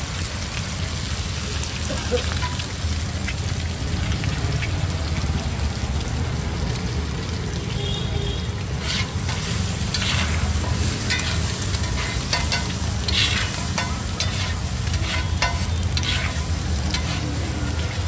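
Egg dish sizzling in a hot pan while it is stirred, over a steady low rumble. From about halfway through, a metal spatula scrapes and clinks against the pan again and again.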